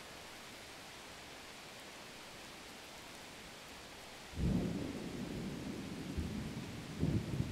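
Oil sizzling steadily around a bread pakoda as it deep-fries. About four seconds in a louder, uneven low rumble sets in and swells again near the end, becoming the loudest sound.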